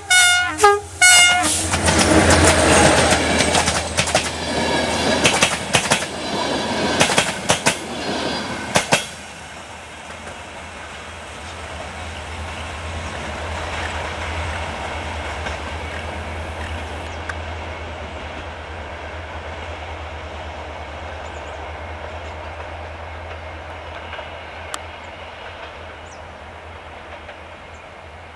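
Diesel locomotive sounds its horn in short blasts as it arrives, then passes close by with its passenger coaches, wheels clattering over the rail joints. About nine seconds in the sound drops to the steady, fading rumble of the train pulling away.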